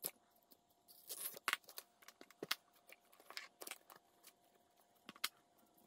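Brittle, deteriorated sheathing and insulation of an old Mercedes M119 engine wiring harness being cut and stripped from the wires by hand: a scattered series of sharp snips, cracks and short crunches.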